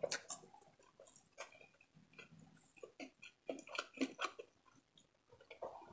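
Faint close-miked chewing and wet mouth sounds: a scatter of short soft clicks and smacks, busiest about four seconds in.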